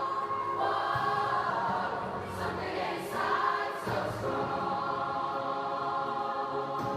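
Community rock choir of mostly women singing together, with a lead singer on a microphone, holding long sustained notes that change a few times.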